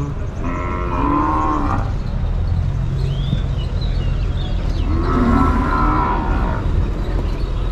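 Cattle mooing twice, two drawn-out calls each about a second and a half long, the second one starting about five seconds in.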